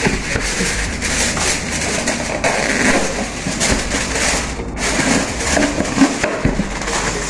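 Aluminium foil crinkling in irregular crackles as a sheet is pulled out and pressed down around a plate of flatbread.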